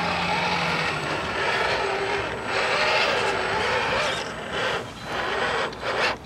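Electric motor and gearbox of a scale RC crawler truck whining as it is driven over the off-road course, the pitch rising and falling with the throttle.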